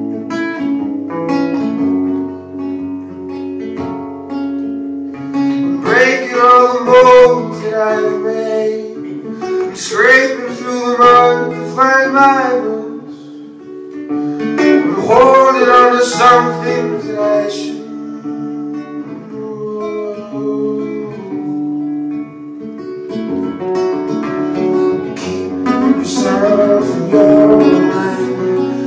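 Live song with strummed acoustic guitar and a singer's voice coming in for several held phrases.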